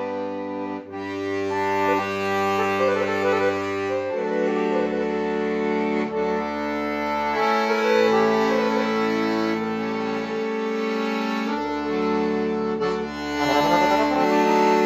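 Piano accordion playing a melody of held notes on the treble keys over sustained bass notes, the bass changing every few seconds.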